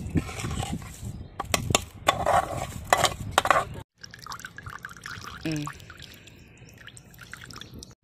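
A steel ladle scrapes and clinks against a metal plate as soaked rice drops into a water-filled iron kadai, with several sharp clicks and splashes. After a cut about four seconds in, oil trickles faintly into the water.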